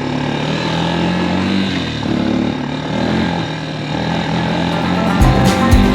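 A vehicle engine running, its pitch drifting up and down a little. Near the end, music with a heavy beat comes in.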